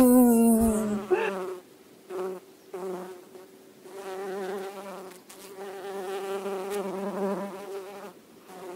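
Imitation bee buzzing, the 'bzzz' of a cartoon bee: loud for about the first second, then a quieter, steady, wavering buzz that drops out briefly several times.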